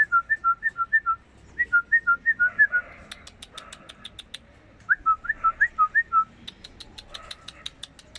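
A person whistling short rising-and-falling notes, about five a second, in three bouts, with runs of rapid sharp clicks in between.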